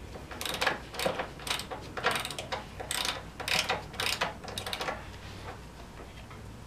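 Ratchet wrench clicking in quick repeated strokes, about three a second, as a kickstand bolt is worked; the strokes stop about five seconds in.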